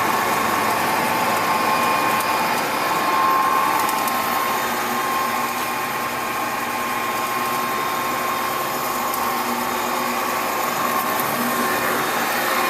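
2002 Clausing-Colchester 15-inch lathe running, a steady whir with a high whine from its motor and gearing; it runs quietly, the sign of a machine in good running order.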